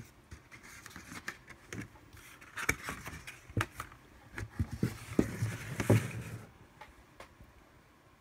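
Cardboard packaging and art cards being handled: rustling with a string of taps and knocks as cards and a fold-out disc holder are moved and set down, dying away about six and a half seconds in.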